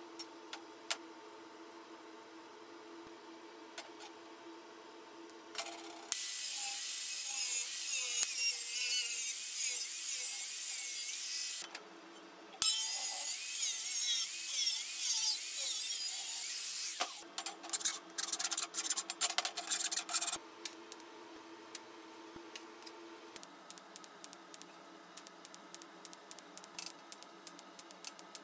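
A power tool running under load in two long runs of about five seconds each, with a second's break between them, then a few short bursts before it stops.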